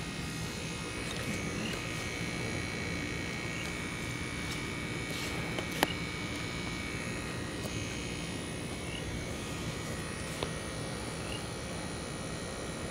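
Steady outdoor background: an even low hum under several thin, steady high tones, with one sharp click about six seconds in.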